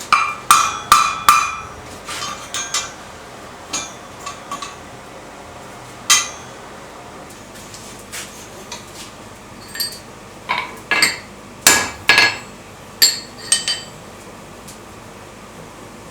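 Hammer blows on steel at the anvil, irregular and ringing, in two main flurries with lighter taps between.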